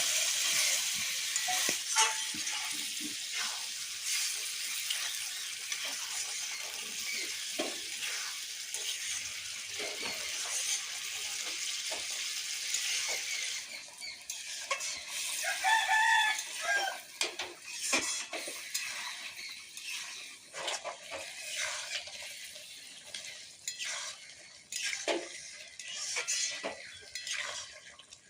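Masala paste sizzling in hot oil in a cooking pan while it is stirred, the spatula knocking and scraping against the pan; the sizzle dies down about halfway through, leaving mostly the stirring strokes. A rooster crows briefly around the middle.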